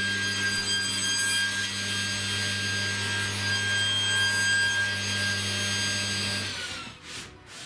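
Table saw motor running freely with no cut, a steady low hum under a high whine; about six and a half seconds in it is switched off and the whine falls away as the blade spins down.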